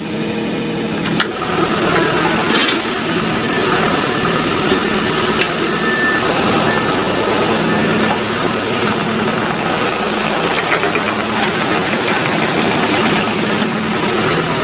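A heavy vehicle's engine running steadily, with a few faint knocks.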